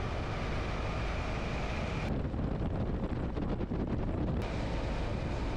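Adventure motorcycle riding along at a steady speed on a gravel road: a constant engine drone under wind rushing over the microphone. The high hiss dulls about two seconds in and brightens again a couple of seconds later.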